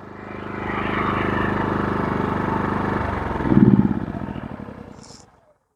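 Westinghouse WH3700iXLTc inverter generator running, getting louder over the first second and holding steady. About three seconds in its sound changes, with a brief louder swell, and then it fades away to silence.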